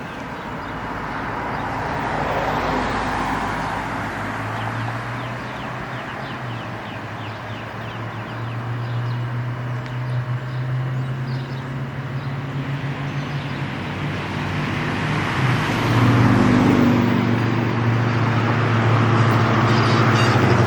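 Road traffic: vehicles passing on the street, their tyre and engine noise swelling and fading, with a steady low engine hum that grows louder toward the end.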